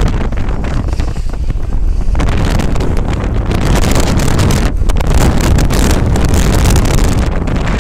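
Strong storm wind buffeting the microphone: a loud, gusting low rumble with rushing hiss that grows from about two seconds in.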